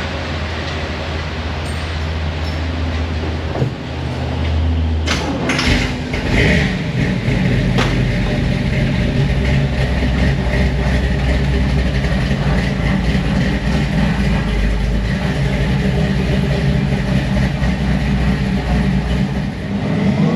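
An engine running steadily, with a few clunks a few seconds in.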